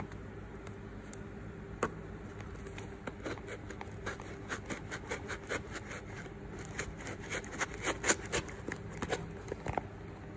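Hands unwrapping a sealed parcel's packaging: a scattered run of light scrapes, crackles and clicks, busiest about seven to nine seconds in.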